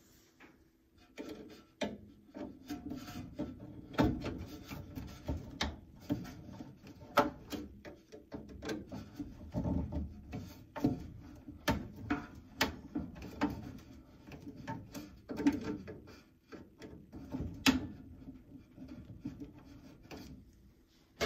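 Fabric rustling and rubbing close to the microphone, with irregular sharp clicks and knocks of hands working on fittings overhead.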